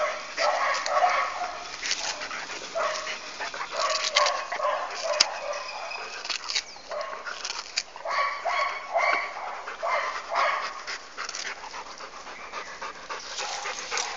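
A dog chewing and gnawing on a stick of sugarcane, with many short cracks and crunches.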